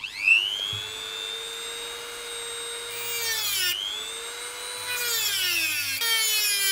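Dremel rotary tool spinning up to a steady high whine, then cutting into the mirror base's sleeve. Its pitch sags as the bit bites, about three seconds in and again several times near the end, and recovers between cuts.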